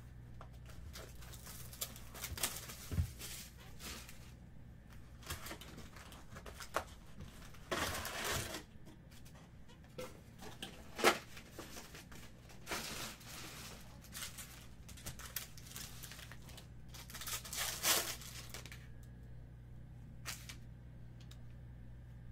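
A cardboard box of Topps Chrome baseball cards being opened and its foil card packs handled and torn open: scattered bursts of tearing, rustling and crinkling wrapper, with a sharp tap about halfway through.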